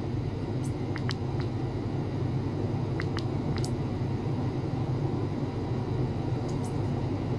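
Steady low hum with a faint hiss over it, and a few brief sharp ticks about a second in, around three seconds in and near the end.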